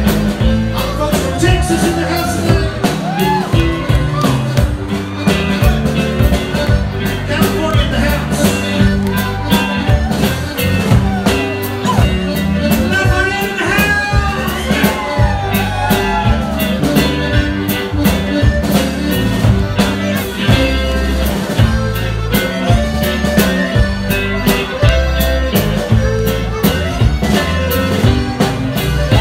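Live band music: acoustic guitar, button accordion and drum kit playing together through a PA, with a steady drum beat under a bending melody line.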